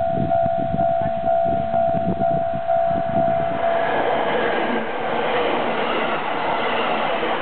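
A Japanese level-crossing alarm rings its repeated electronic tone a little over twice a second. About four seconds in, a 785 series electric limited express train passes over the crossing, and its loud rolling rush drowns out the bell.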